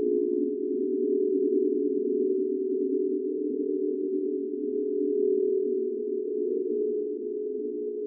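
Eerie ghost sound effect: a steady low drone of several layered tones held without a break, wavering slightly in loudness.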